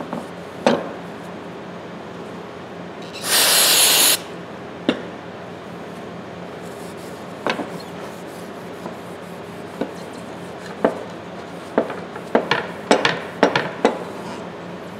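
A cloth rubbing over the handles of large tongue-and-groove pliers, with the steel pliers knocking and clacking against the stone work board now and then, in a quick cluster near the end. About three seconds in comes a loud hiss of about a second, a spray.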